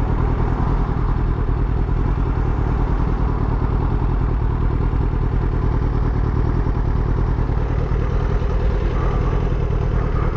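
Motorcycle engine running steadily, with no revving up or down.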